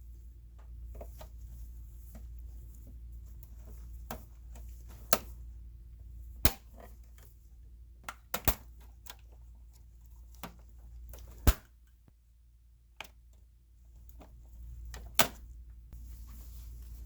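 Handling clicks and knocks from taking apart an all-in-one computer to remove its hard drive: about half a dozen sharp clicks spread through, the loudest about two-thirds of the way in, over a low steady hum.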